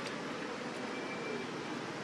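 Steady background hiss and rumble with no distinct event.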